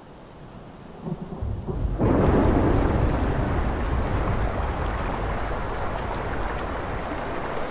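Swollen, muddy river in flood rushing and churning over rocks: a loud, steady rush of water that comes in suddenly about two seconds in, after a low rumble.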